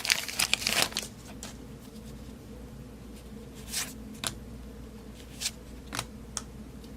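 Baseball card pack wrapper crinkling as it is torn open in the first second, then cards being slid and flipped through by hand, with a few short, sharp flicks.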